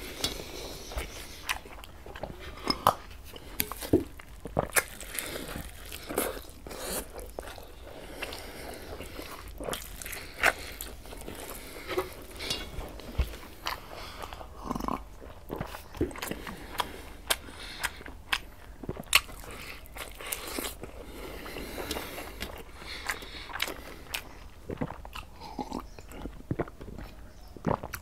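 A man chewing fried egg close to a lapel mic, with many irregular wet mouth clicks and smacks, and now and then a sip from a glass.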